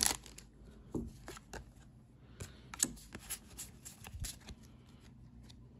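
Trading cards being slid out of an opened pack and flicked through by hand, a scattered series of soft card-on-card flicks and taps.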